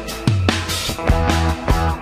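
Background music with a steady drum beat and bass notes.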